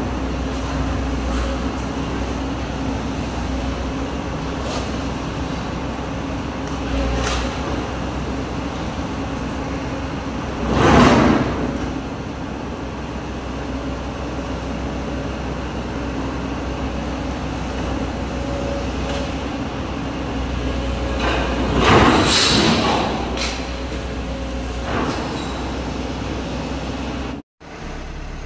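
Komatsu PC200 hydraulic excavator's diesel engine running steadily while its bucket works at a steel mill structure during demolition. There are a few knocks, and two loud crashes of metal and debris, about eleven seconds in and again about twenty-two seconds in.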